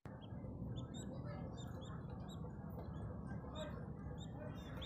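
Baby budgerigar chicks peeping: many short, high-pitched squeaks, several a second, overlapping from more than one chick, over a steady low background hum.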